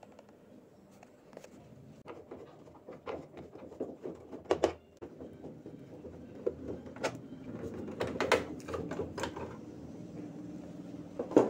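Plastic rear top cover of a Samsung top-loading washing machine being undone and lifted off: a string of irregular clicks and knocks of plastic parts, with a sharper knock near the end.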